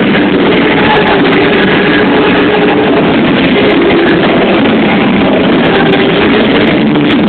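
Loud amplified music from a sonidero sound system with a band on stage. It comes through as a dense, steady wall of sound, with no breaks.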